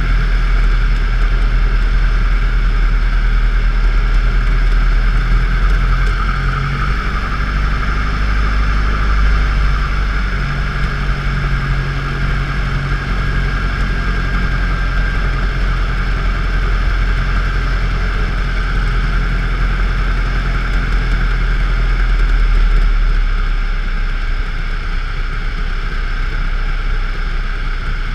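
DHC-1 Chipmunk's single piston engine and propeller running steadily on the landing approach, heard from inside the cockpit with a steady rush of airflow. The engine note eases off a little about 23 seconds in.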